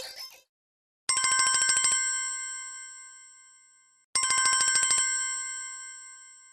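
Samsung ATIV S ringtone: a fast trill of bell-like tones for about a second that settles into a chiming chord fading away over a few seconds. It plays twice.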